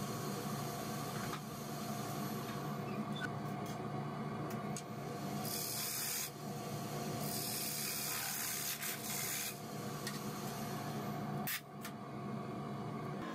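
Wood lathe running with a steady motor hum while a turning tool cuts inside a spinning square wooden blank, giving two hissing cutting passes in the middle. Near the end there is a sharp knock and the lathe is stopped.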